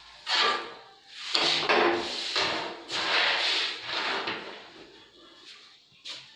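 Hands sliding over a carrom board's surface as the coins are gathered: several scraping swishes, each lasting about half a second to a second, over the first four seconds, then a single sharp click about six seconds in.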